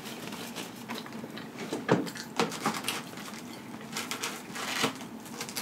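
Close-up eating sounds: soft, wet chewing clicks and smacks of a mouthful of pizza at irregular intervals, then crackling as a slice of cheese-stuffed-crust pepperoni pizza is torn from the pie near the end.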